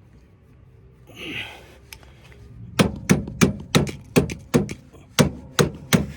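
Rapid run of hammer blows, about three a second, beginning about three seconds in, pounding on a stuck, rotted-on wheel pin of a Honda HS621 snowblower to work it free.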